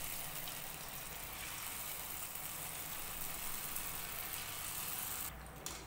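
Potato smiley snacks deep-frying in hot oil in a kadhai: a steady sizzle that cuts off abruptly about five seconds in.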